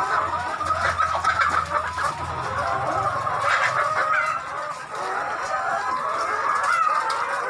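A flock of brown laying hens clucking and calling, many voices overlapping in a continuous chatter.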